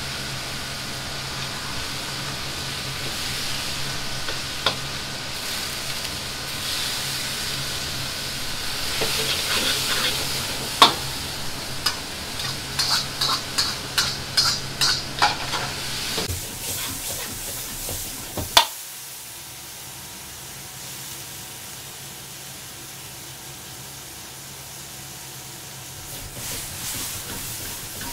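Meat, garlic chives and bean sprouts sizzling as they are stir-fried in a wok over a high gas flame, with the burner's steady noise beneath. A metal ladle clanks against the wok, in a run of strikes about two a second in the middle, then the sound drops suddenly and the sizzling goes on quieter.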